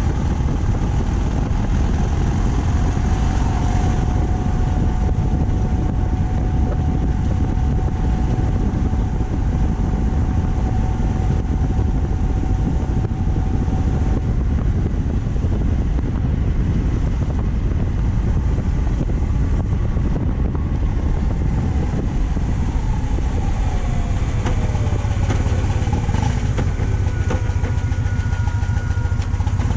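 BMW R 1200 C motorcycle's boxer-twin engine running steadily while cruising, under heavy wind and road rush. A steady whine fades about halfway through, and a few falling whines come near the end.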